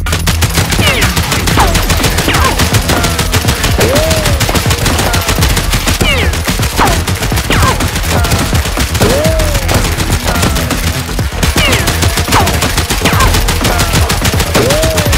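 Rapid, continuous automatic gunfire effects, a dense rattle of shots with short pitch-sweeping whines every couple of seconds, laid over a Nerf blaster shoot-out.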